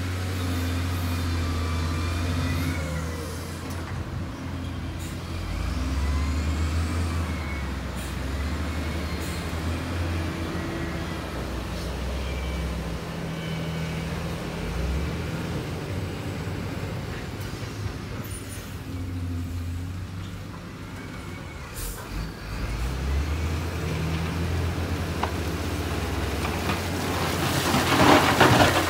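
Heavy earthmoving machine's diesel engine running, a deep steady drone whose pitch shifts now and then, with a louder, rough knocking noise near the end.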